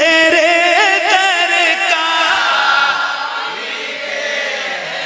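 Man singing a naat through a microphone: a long, drawn-out melismatic phrase with wavering ornaments. About halfway through it becomes softer and blurred.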